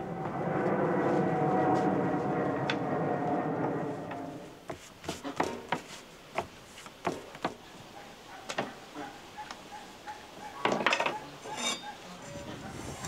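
A steady rushing noise for about four seconds, then a string of light knocks and clicks of cookware and utensils being handled, with a short cluster of them near the end.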